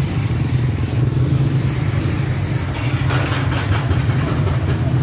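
Engines of motorcycle tricycles idling in stalled street traffic, a steady low hum, growing busier and louder about three seconds in.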